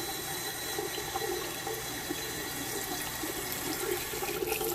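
Hot water running from a bathroom sink tap in a steady stream.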